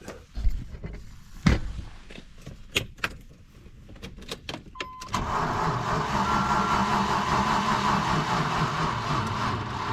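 A few knocks and clicks, then a short steady warning tone, and about five seconds in the 1995 Range Rover Classic's engine starts and keeps running.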